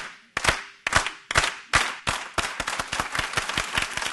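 Hand clapping by the speaker and the audience together: slow single claps, about two a second, that speed up and grow into a dense, fast group clap as more people join in.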